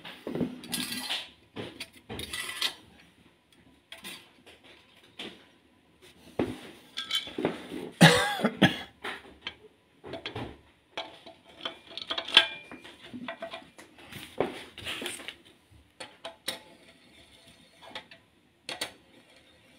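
Metal engine parts and bolts clinking and clattering as a water pump is handled and set onto the engine block: irregular knocks and clicks, the loudest clatter about eight seconds in.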